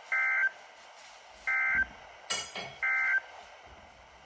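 Emergency Alert System end-of-message data bursts: three short, identical bursts of warbling two-tone digital data, about a second and a half apart, marking the close of the tornado warning. A brief click falls just before the third burst.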